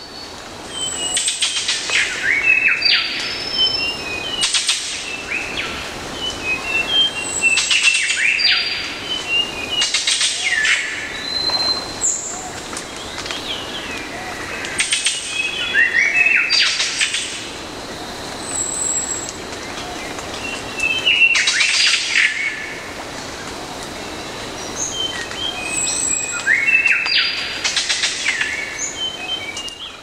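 Dawn chorus field recording from a forest in Sulawesi: birds singing, with a loud phrase of quick rising and falling whistled notes coming back every few seconds over scattered smaller chirps. A thin steady high tone runs under the second half.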